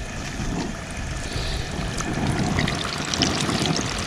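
White perch deep-frying in hot grease in a small tabletop fryer: a steady sizzle with many small crackling pops.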